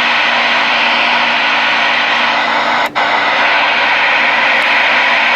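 CB radio receiver hissing with open-squelch static, loud and steady, with one brief break about three seconds in.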